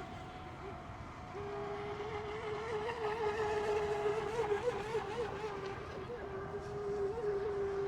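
Radio-controlled racing boat motors running out on the water: a steady high-pitched drone with small quick rises and dips in pitch as throttles are blipped.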